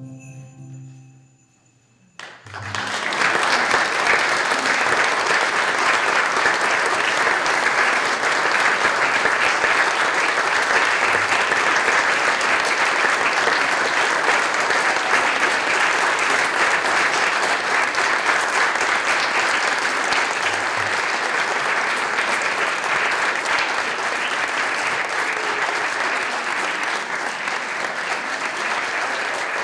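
Audience applauding steadily, starting about two seconds in, just after the last ringing notes of a musical chord die away.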